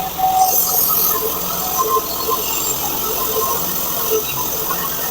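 Portable band sawmill running steadily, its engine going and the band blade cutting through hard black locust.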